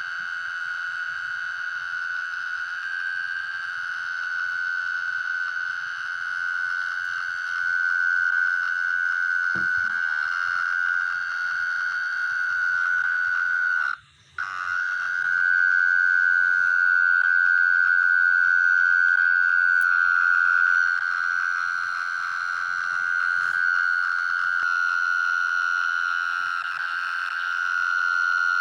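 A night-calling creature's long, steady, high-pitched trill, held without a break for many seconds, stopping for a moment about halfway through, then starting again.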